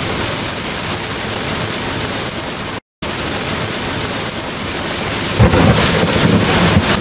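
Steady rain falling on a sailboat in a squall, then a loud low rumble of thunder starting about five seconds in, right after a lightning strike.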